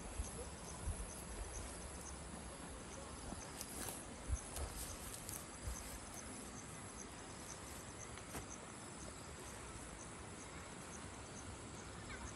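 Insects chirping steadily in the undergrowth, a high-pitched call that repeats evenly, with a few soft low thumps near the start and about four seconds in.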